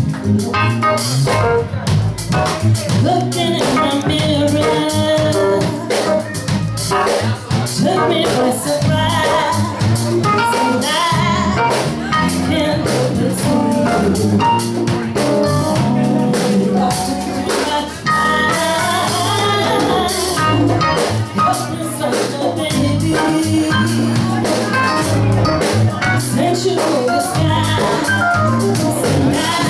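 A woman sings lead into a microphone over a live band, with a drum kit keeping a steady beat and cymbals sounding throughout.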